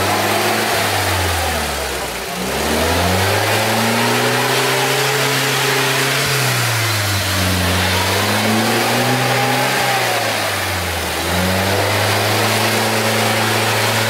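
UAZ off-roader's engine revving hard under load while it churns through deep mud, the revs climbing and holding, then dropping off sharply about 2, 7 and 11 seconds in before climbing again.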